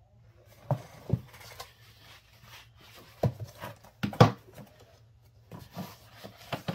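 Plastic three-ring binder handled on a wooden bench: a series of knocks and taps as it is turned over, set down and its cover flipped open, the loudest about four seconds in.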